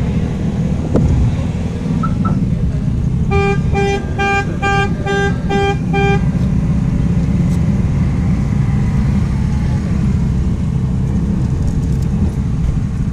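A steady low rumble, with a run of eight short, evenly spaced beeps, about three a second, from about three to six seconds in.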